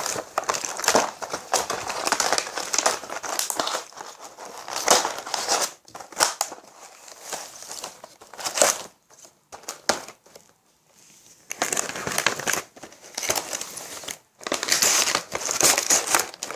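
Cardboard box of a rubber-band loom bracelet kit being handled and closed up: irregular rustling, crinkling and scraping as the contents are slid back inside, with a brief lull about two-thirds of the way through.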